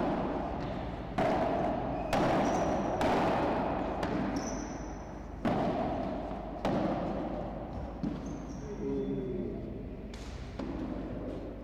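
Padel ball being struck by paddles and rebounding off the court and glass walls during a rally: a string of sharp hits about a second apart, each ringing on in the large indoor hall. A few brief high squeaks come in between the hits.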